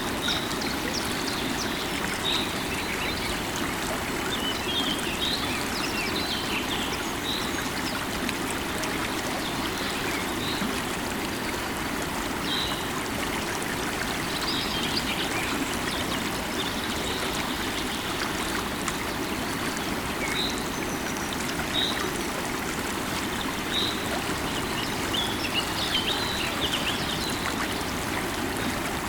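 Steady rush of a flowing river, with short bird chirps every few seconds over it.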